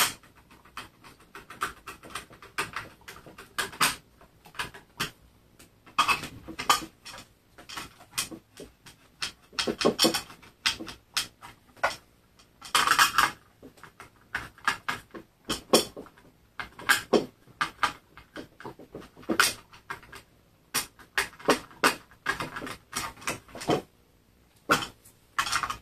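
Small metal blades on a robotic mower's cutting disc clicking and rattling against the plastic disc as they are wiggled by hand, with a screwdriver working the blade screws. This frees a blade that its screw had pinched. Irregular clicks and short clattering runs, a few louder than the rest.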